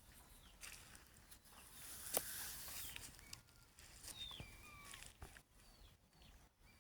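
Faint bird chirps: short whistled calls, each sliding down in pitch, repeated every half second or so, with a sharp click amid a brief hiss about two seconds in.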